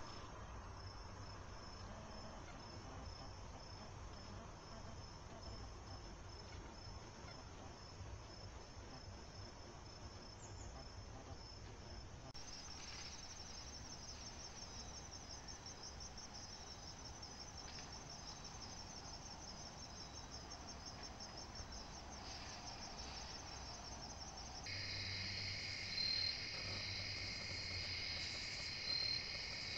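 Crickets and other insects singing in an evening chorus. First comes an evenly spaced high pulsing, then a faster high trill from about 12 seconds in. From about 25 seconds in a denser chorus of several insects takes over, with a few louder chirps near the end.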